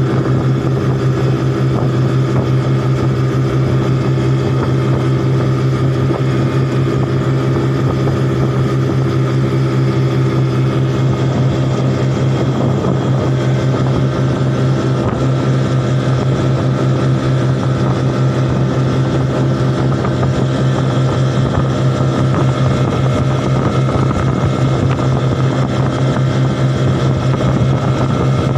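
Outboard motor of a small wooden boat running steadily at cruising speed, its pitch holding constant, with water rushing along the hull.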